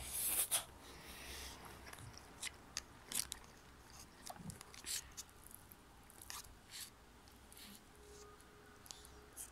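A child chewing noodles close to the microphone: irregular small wet mouth clicks, with a louder burst about half a second in.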